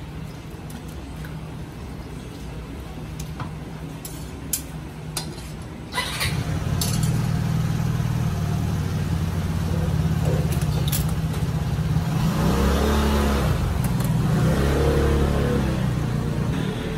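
A motor vehicle engine running close by. It grows louder about six seconds in and revs up and down twice near the end, over a steady low hum, with a few sharp clinks before it.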